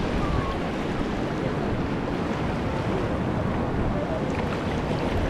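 Small sea waves washing in and breaking on a sandy shore, heard close at the waterline, with wind rumbling on the microphone.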